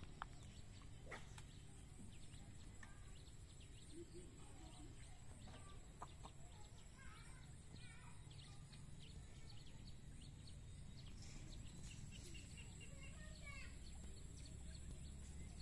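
Faint outdoor ambience: scattered short bird calls, thickest about halfway through and again near the end, over a low steady background rumble.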